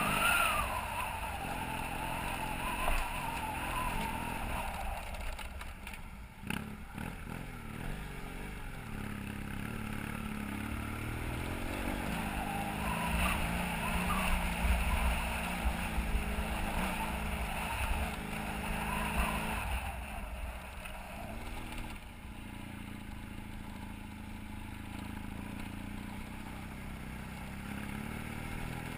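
BMW F800GS's parallel-twin engine running on the move, its pitch rising and falling with the throttle over a steady low rumble. A short sharp knock comes about six seconds in.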